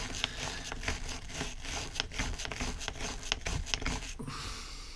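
A small hand tool scraping and scratching inside a carburetor's metal float bowl in quick, irregular strokes, clearing out old fuel gunk, then a softer, steadier rubbing near the end.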